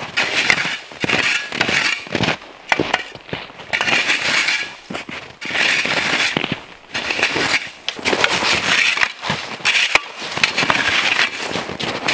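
Plastic snow shovels scraping and scooping a couple of inches of snow off the ground, a crunching stroke about every second.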